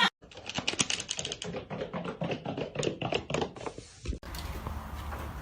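A quick, uneven run of light clicks and taps for about four seconds, then a sudden cut to a steady hiss.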